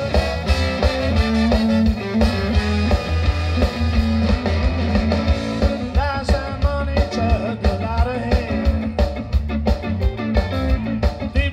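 Live ska band playing: electric guitars, bass guitar and drums under a horn section, with the saxophone carrying bending melodic lines in the middle of the passage.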